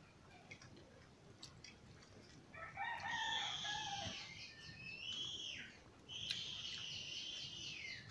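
A bird crowing twice, starting about two and a half seconds in. The first call is about three seconds long and the second about two, and each ends in a falling slur.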